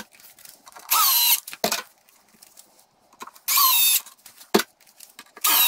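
Power drill driving screws into a wooden board in three short bursts, the motor whine dropping in pitch as each screw bites. Sharp clicks come between the bursts.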